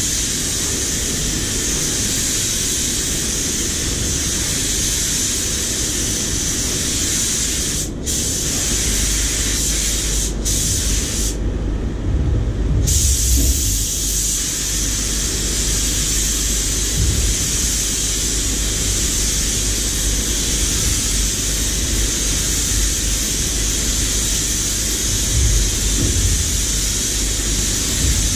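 Compressed-air spray gun spraying car paint: a steady hiss of air and atomised paint. It cuts out for a moment about eight seconds in and again about two seconds later, then for over a second soon after, as the trigger is let off between passes. A steady low rumble runs underneath.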